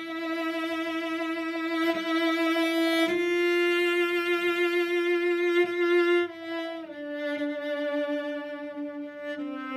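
Solo cello playing a slow bowed melody: one long note held with vibrato for about six seconds, then stepping down to lower notes twice.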